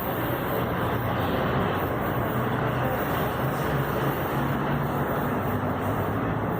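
Steady rumble of a São Paulo metro train moving through the station, with a low hum that comes and goes.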